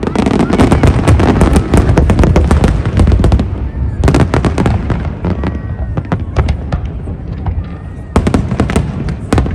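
Fireworks display going off overhead: rapid crackling bangs and pops, densest for the first three seconds or so, easing off, then thickening again near the end.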